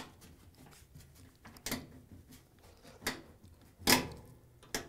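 A rubber drain hose is twisted and pulled off the plastic outlet of a washing machine drain pump by gloved hands, making several separate short scrapes and rubs. The loudest comes about four seconds in.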